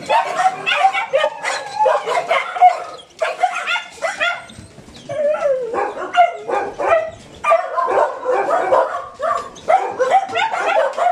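A pack of mixed-breed shelter dogs barking and yipping over one another in short, overlapping calls. There is a brief lull about four to five seconds in.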